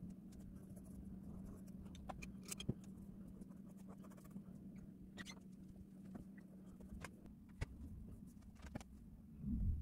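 Short, scattered scratching strokes of drawing on paper, over a steady low hum, with a louder low bump near the end.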